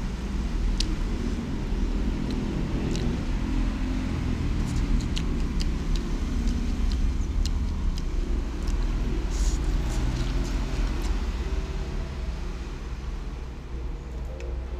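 Steady low rumble of road traffic, with scattered light clicks.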